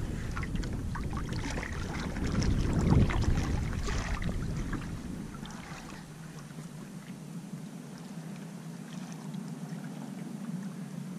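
Water splashing and lapping against the hull of a small paddle craft on the open sea, with scattered little splashes. It grows quieter and thinner after about halfway.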